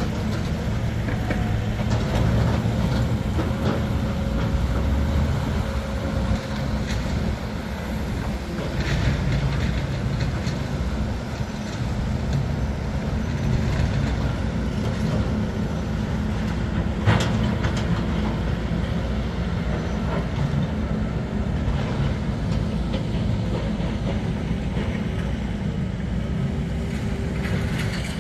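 Heavy demolition machinery running: a steady diesel engine rumble with scattered metal clanks and knocks, and one sharp bang about seventeen seconds in.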